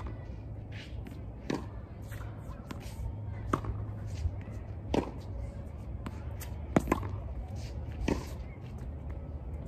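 Tennis balls struck by a racket and bouncing on a hard court: sharp pops every one to two seconds, a quick pair near the end, over a steady low rumble.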